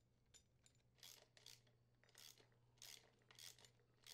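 Socket ratchet on an extension swung back and forth, tightening the bolt that secures a Toro snowblower's right auger bearing assembly. After a few light clicks, six short, faint ratcheting rasps come about half a second apart, starting about a second in.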